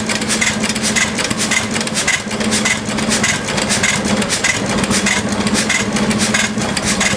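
Amanco 8 HP Mule Team hit-and-miss petrol stationary engine running unloaded, its flywheels spinning, with a regular mechanical clacking about twice a second over the engine's hum.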